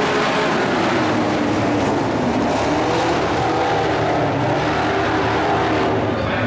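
A pack of dirt-track race trucks running hard together, a steady, loud mix of several overlapping engine notes.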